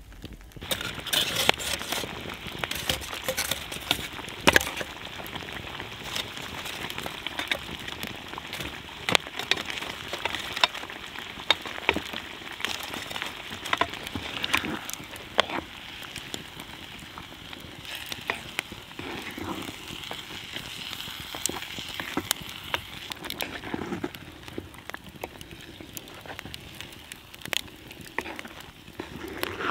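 Wood campfire crackling with frequent sharp pops over a steady sizzling hiss from a cast-iron pot of stew simmering in the coals; the hiss thins out during the last few seconds.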